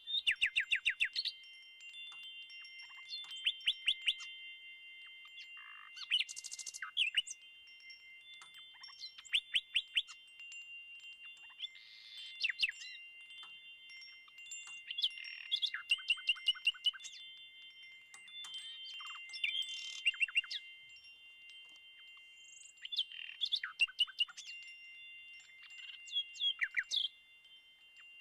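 A soundscape of several steady, high ringing tones held throughout, with clusters of quick tinkling clicks and short falling chirps coming back every two to four seconds.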